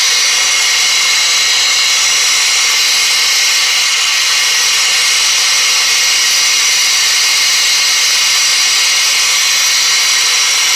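Hose-fed Goss gas torch burning with a steady, unbroken hiss, mostly high-pitched. Its flame is held on a rusted, seized pulley nut to heat it loose.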